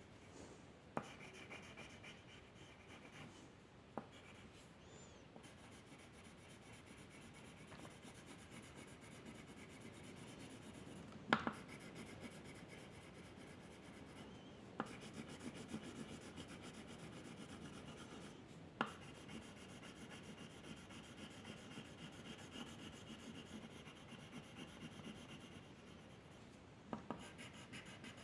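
A drawing tool rubbing and scratching steadily across paper, faint, with a few sharp clicks or taps along the way, the loudest about eleven seconds in.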